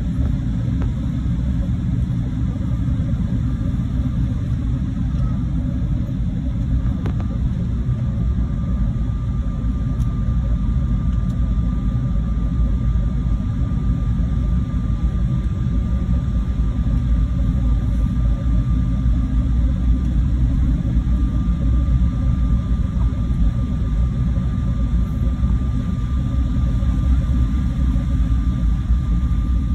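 Steady low rumble inside the cabin of a Finnair jet airliner taxiing after landing: the engines at taxi power and the aircraft rolling along the taxiway. A faint, thin steady whine joins about seven seconds in.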